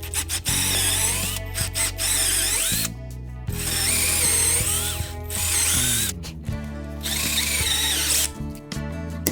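Handheld power tool, drill-like, running in three bursts of a couple of seconds each with a wavering whine, over background music.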